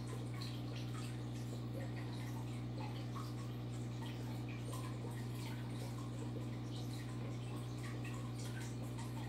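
Aquarium water trickling and dripping with many small irregular splashes, over a steady low hum from the tank's equipment.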